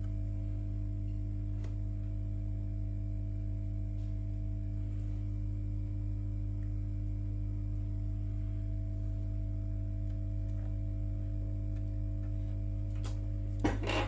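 Steady electrical hum made of several fixed low tones, unchanging throughout, with a few sharp clicks and knocks of handling near the end.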